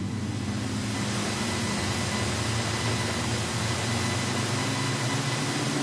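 Production sedan race cars on a dirt speedway running bunched in a line at steady, moderate revs: an even engine drone with hiss and no sharp revving.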